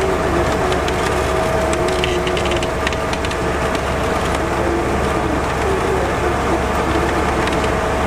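Heavy diesel machinery running steadily under load, a truck crane and a crawler bulldozer working together to lift the bulldozer out of a water-filled ditch, with a steady whine over the engine rumble. Scattered clicks come about two to three seconds in.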